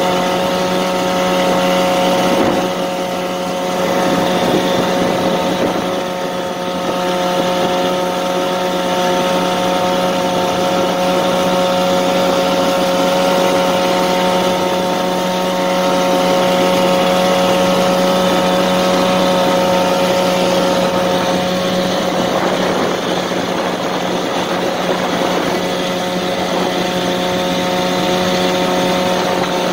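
Boat's outboard motor running at a steady speed, a constant-pitched engine hum that drives the boat along the river.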